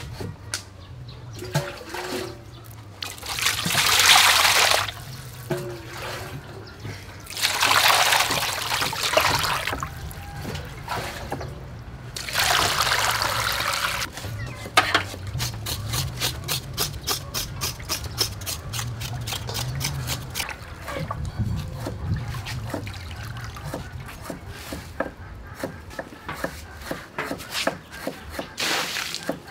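Water being poured and sloshed in a metal basin while a raw pig's head is washed by hand, coming in three loud surges in the first half. After that comes a long run of quick rubbing and scraping strokes as the skin is scrubbed.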